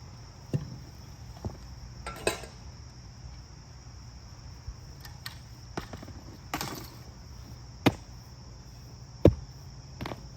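An axe chopping into a rotten tree stump, with irregular strikes a second or more apart; the loudest comes about nine seconds in. Crickets chirr steadily behind.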